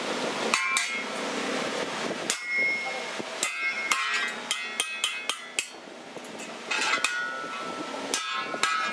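Hammer blows on a steel punch held against a sheet-steel hoe blade on an anvil: a series of irregular metallic clanks, some in quick succession, each with a short ring.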